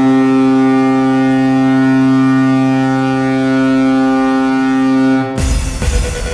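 Vegas Golden Knights arena goal horn blowing one long, steady, deep blast, like a ship's horn. It breaks off about five seconds in into a burst of loud noise.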